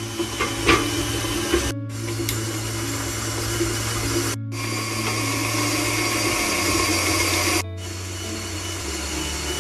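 Stand mixer running, its beater churning butter and sugar in a glass bowl, with a few knocks in the first couple of seconds. Background music plays under it, and the sound breaks off for a moment twice.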